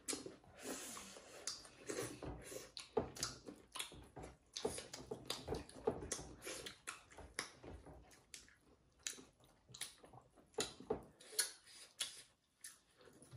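Chewing and mouth sounds of people eating buffalo meat, rice and millet dhido with their hands: irregular wet smacks and clicks, several a second.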